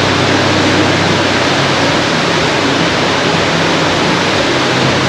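Heavy rain pouring down in a storm: a steady, loud rush of noise.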